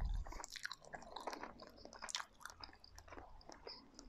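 A man chewing a mouthful of chicken tikka garlic chilli curry, with soft, irregular wet mouth clicks.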